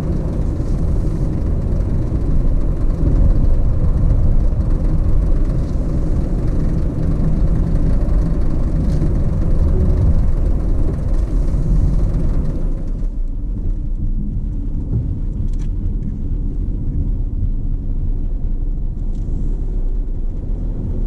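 Car driving along a road, with steady engine and tyre rumble. About 13 seconds in, the higher hiss drops away suddenly, leaving a lower rumble.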